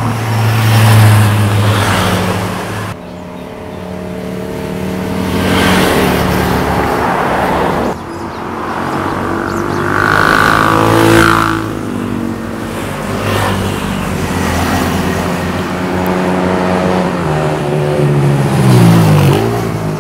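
Motorcycle engines revving and passing at speed, the pitch rising and falling through the gears. The sound breaks off abruptly and starts anew twice, about three and eight seconds in.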